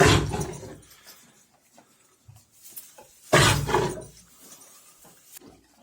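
A horse coughing twice, two sudden harsh coughs about three and a half seconds apart. It is the dry, persistent cough that marks the early stage of equine COPD (heaves, pulmonary emphysema).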